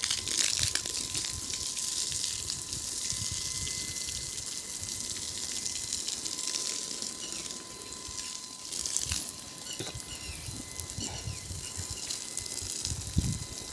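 Water gushing steadily from a hose fed by an electric water-pump motor, spraying out as a constant hiss.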